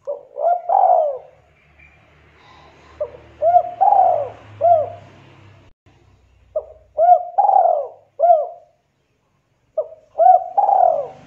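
A dove cooing in four phrases, each a quick run of short rising-and-falling coos, about three seconds apart.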